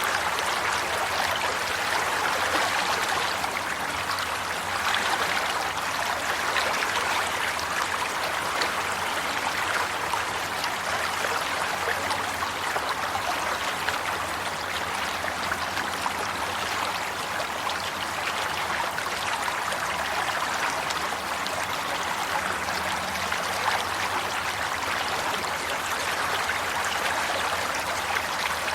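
Water running steadily in a stream, a continuous even rush with trickling and gurgling.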